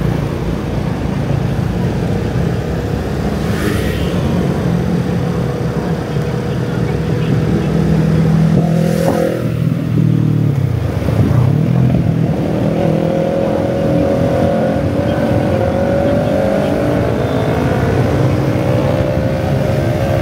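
Motorbike engine running under way in dense road traffic, with traffic noise around it. The engine note dips about ten seconds in, then climbs steadily through the second half as the bike picks up speed.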